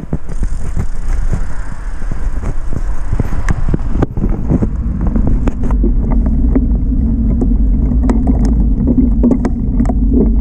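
Wind buffeting the microphone of a handlebar-mounted camera on a moving bicycle: a loud, steady low rumble with scattered clicks and knocks from the bike rolling over pavement. It starts suddenly and grows heavier a few seconds in.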